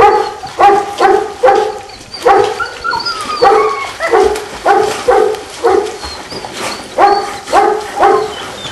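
Belgian Shepherd dog barking over and over, about two barks a second, with a short pause about six seconds in.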